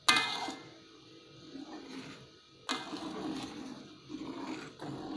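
Spatula knocking and scraping against a metal wok while stirring a thick chili sauce: a sharp ringing strike at the start and another about two and a half seconds in, with rough scraping between.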